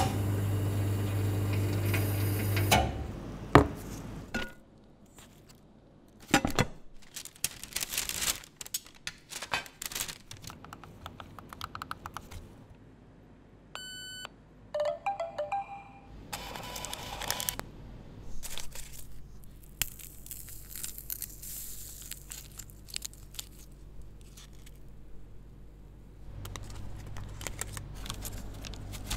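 A string of coffee-shop handling sounds. A steady low hum fills the first few seconds, followed by scattered clicks and taps. About halfway through, a card payment terminal gives a short beep as a phone pays contactlessly, with a few brief tones just after. Dry rustling and crinkling of paper and molded pulp cup carriers follow.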